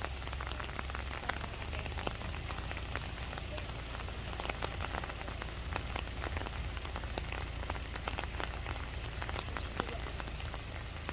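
Rain falling, with many sharp separate drop hits over a steady hiss and a low rumble underneath.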